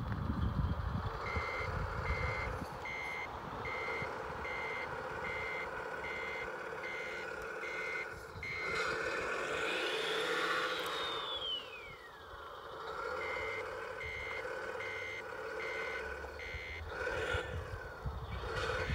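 Electronic reversing beeper from an RC truck's sound module, a steady beep about one and a half times a second over a constant engine hum. The beeping stops for a few seconds in the middle while a tone glides up and falls back, then starts again.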